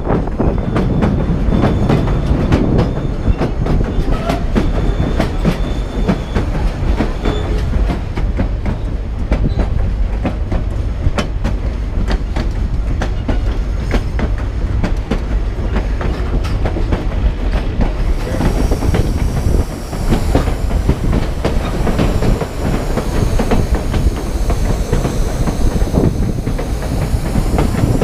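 White Pass & Yukon Route passenger coach rolling along the narrow-gauge track, heard from the side of the moving car: a steady low rumble of the wheels with a rapid clickety-clack over the rail joints. In the second half, a faint wavering high squeal of wheels on a curve rides over the clatter.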